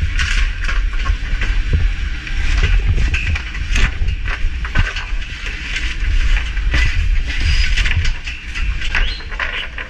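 Fireground noise heard through a helmet camera: a steady low rumble and hiss, broken by many short knocks and clicks as gear and the wooden fence gate are handled.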